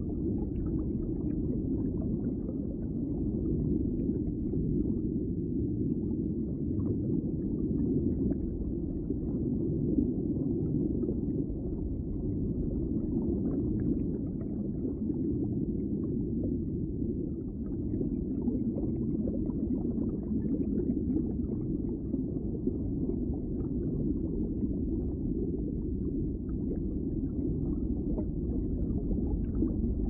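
Steady, low rushing sound of running water.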